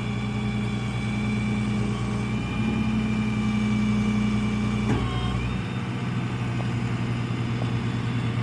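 Rollback tow truck's engine running steadily, its note rising slightly, then a brief knock about five seconds in, after which the engine note drops.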